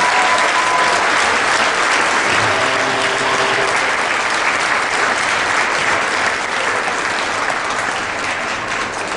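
Audience applauding steadily, the applause easing off slightly near the end.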